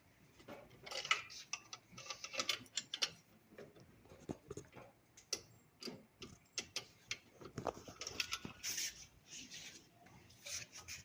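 Irregular metal clicks, taps and brief scrapes as a part of a Jet belt sander is worked against its mounting hole, which over-tightening has gouged and distorted so the part will not seat.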